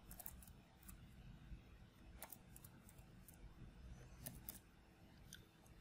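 Near silence with a few faint, scattered computer keyboard key clicks.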